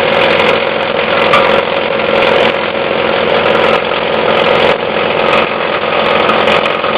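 Plastic shredder running with a steady loud machine drone, chopping plastic, with short sharp cracks at irregular moments.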